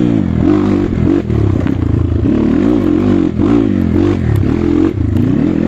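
Trail motorcycle engine being ridden hard, its revs rising and falling in quick repeated swings about twice a second as the throttle is worked, with scattered knocks and clatter from the bike over the rough ground.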